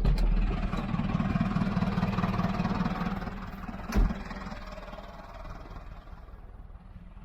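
A motor vehicle's engine running steadily, dying away after about four and a half seconds, with one sharp knock about four seconds in.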